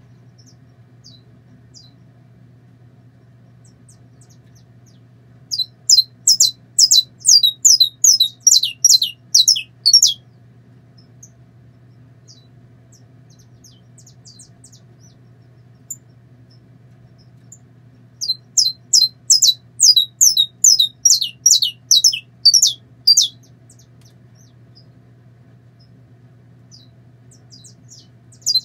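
Caged saffron finch singing two bouts of song, each four to five seconds of rapid, sharp, high notes falling in pitch, about three a second, with quiet stretches between. A faint steady low hum runs underneath.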